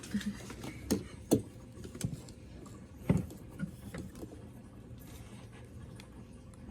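A few scattered clicks and knocks of small hardware being handled and fitted while a roller is mounted on a sliding pocket door. The loudest knock comes about three seconds in.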